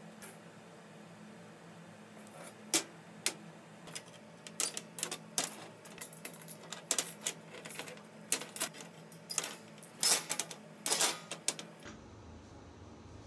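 Irregular metallic clicks and clinks of small steel parts being handled: nuts and leg rods knocking against a perforated metal tray and a steel worktable as the legs are fitted. The clinks stop near the end.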